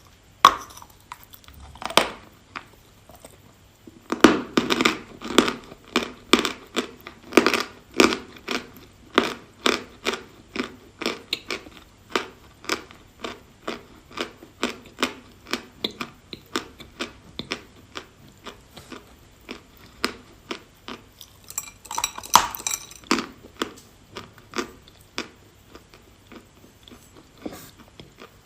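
Dry chalk being bitten and chewed close to the microphone, with sharp crunches at about two a second. A fresh bite comes about two-thirds of the way through, and the chewing then tapers off.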